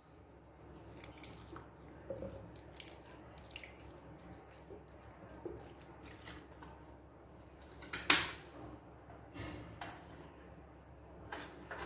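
Liquid being spooned into a blender jug: faint drips and small clinks, with one sharper knock about eight seconds in.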